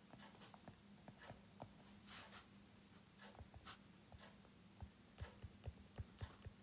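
Faint taps and clicks of a stylus writing on a tablet screen, coming more often near the end, over a faint steady hum.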